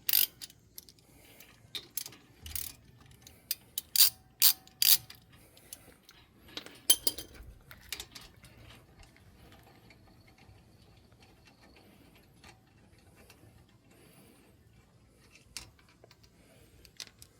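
Ratchet wrench clicking and metal tools clinking while the front brake caliper bolts are worked loose, a run of sharp clicks in the first half, then only a few scattered clinks.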